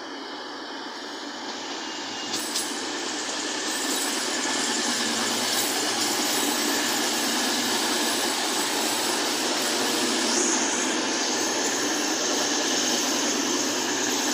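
East Midlands Railway Class 222 Meridian diesel multiple unit arriving into the platform, its running noise building up over the first few seconds and then holding steady as it passes close by. A thin high squeal of wheels or brakes sounds over the top, with a second, lower squeal joining about ten seconds in.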